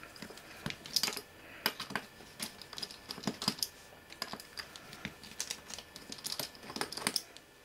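Irregular small clicks and taps, a few a second, of metal parts being handled as a cover is worked off a metal military electronics box.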